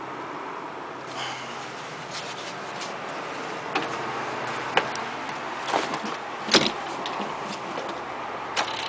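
Handling noises in a tractor cab: scattered clicks and knocks as a person climbs into the seat and reaches for the key switch, the loudest a single clunk about six and a half seconds in, over a steady background noise.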